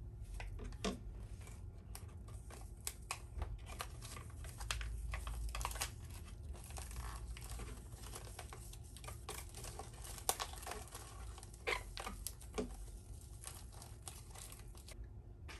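White paper packet of candy-slime powder crinkling and rustling in small hands, in irregular crackles, as it is shaken and squeezed to empty it into a plastic tub.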